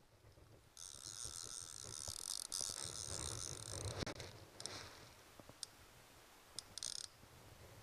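Fly reel's click-and-pawl drag buzzing as a hooked salmon pulls line off the reel. One continuous run lasts about four seconds, then a few short bursts follow near the end.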